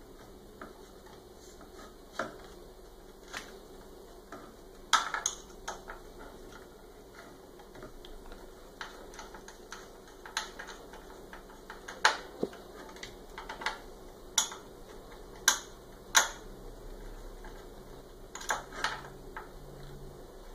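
Irregular sharp clicks and taps of a screwdriver turning an M4 screw that fastens a metal switching power supply to an MDF printer frame, with about ten louder knocks among fainter ticks.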